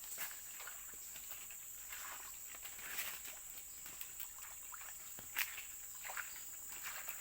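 Insects buzzing steadily at a high pitch, with scattered soft rustles and a few sharp clicks from footsteps and handling in the undergrowth. The loudest click comes about five seconds in.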